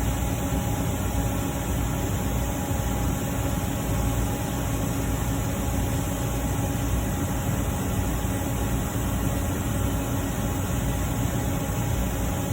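Steady background hum and hiss with a few faint constant tones and no distinct events.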